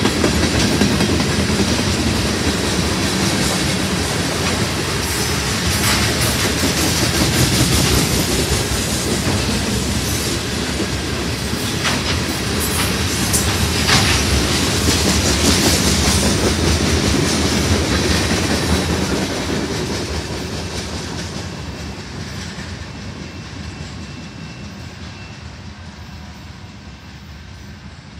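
Freight train cars rolling past, steel wheels clacking on the rails with scattered sharp clicks. The sound fades away over the last several seconds as the end of the train passes.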